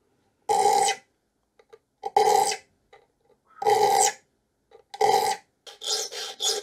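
Triangular saw file rasping across the steel teeth of a dovetail saw being re-toothed, file held flat to shape the new teeth. Four slow strokes come about a second and a half apart, then quicker, shorter strokes near the end, each rasp carrying a steady pitch.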